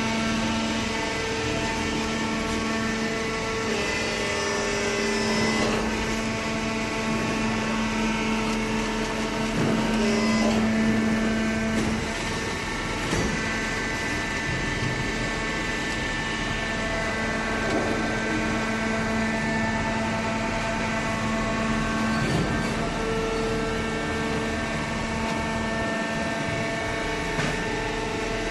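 Hydraulic power unit of a semi-automatic horizontal cardboard baler running with a steady hum, with slight shifts in tone as it works.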